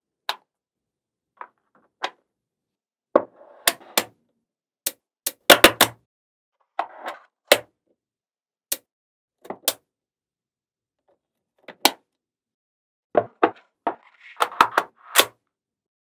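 Small magnetic balls clicking and snapping together as a model is built from them: scattered sharp clicks, with short clattering runs about a third of the way in and again near the end.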